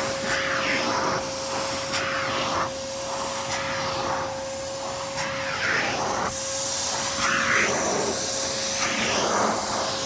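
Dyson DC33 vacuum cleaner running with a steady whine while its hose tool is worked over carpeted stairs. The suction hiss rises and falls roughly once a second with the strokes over the carpet.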